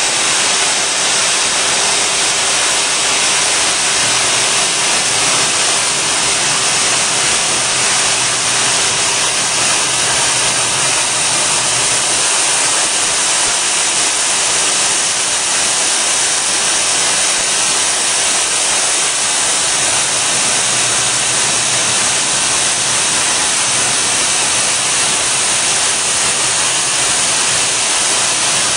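Friction stir welding machine at work, its rotating tool traversing a seam in an aluminium plate with a hose nozzle aimed at the tool: a steady, bright, even hiss that does not change in level.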